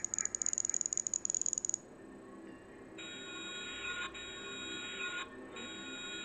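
Generative electronic soundtrack of a Flash film: a rapid stutter of clicks over a high whine for about the first two seconds. From about halfway, several steady high electronic tones sound together, breaking off briefly near the end.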